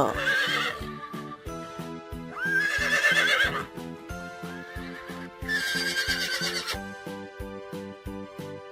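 Horse neighing: two quavering neighs, about two and a half and five and a half seconds in, over background music with a steady beat.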